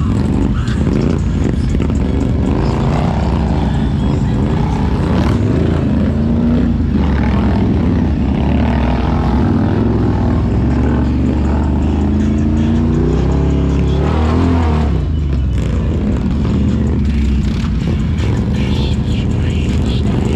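ATV engine running hard, its pitch climbing steadily for a couple of seconds past the middle as it revs, then dropping back sharply.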